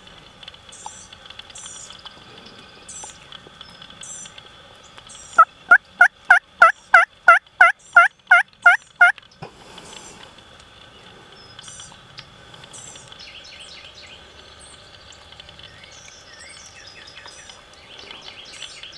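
A loud run of about a dozen turkey yelps, about three a second, each note dropping in pitch, lasting a few seconds; faint songbird chirps continue around it.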